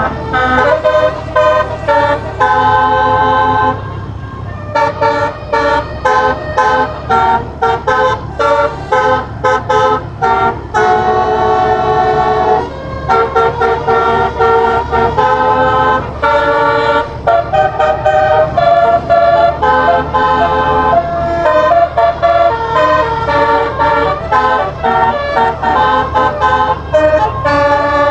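Basuri, a multi-trumpet air horn with tuned horns played by a MIDI module, playing a melody note by note, often with several horns sounding together, and a run of short, quick blasts in the first half. A steady low hum sits underneath.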